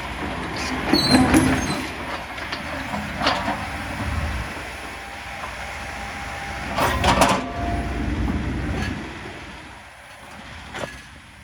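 Hitachi ZX135US compact excavator's diesel engine running under load, swelling about a second in and again around seven seconds as it works, with a few sharp metal clanks.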